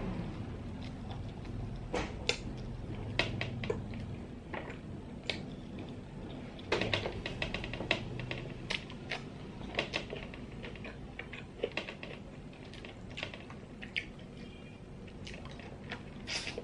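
Close-up eating sounds: irregular sharp clicks and taps of small nerite snail shells being handled and picked at with a pin, along with chewing, a few clicks a second at the busiest.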